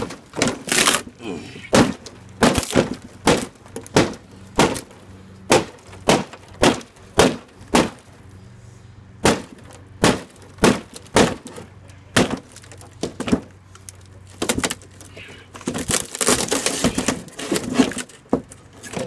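A claw hammer repeatedly striking a thin varnished wooden panel and splintering it. There are sharp knocks about once or twice a second, a short break in the middle, then a stretch of rapid cracking and splintering near the end.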